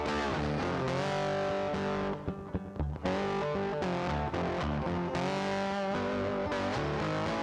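Background music led by distorted electric guitar, with bass, playing steadily; it thins out briefly about two to three seconds in.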